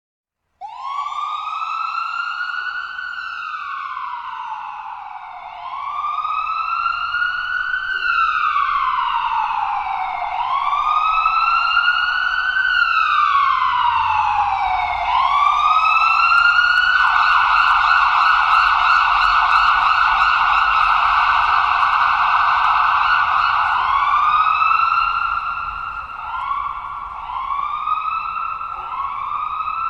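Ambulance siren sounding: a slow wail rising and falling about every five seconds, which changes a little past halfway into a rapid warble for about seven seconds, then into quicker, shorter rising sweeps near the end.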